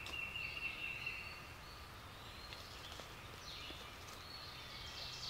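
Songbirds calling in the dawn chorus: a thin high whistled note held for about a second and a half at the start, then a few short falling chirps near the middle, over a faint steady background hiss.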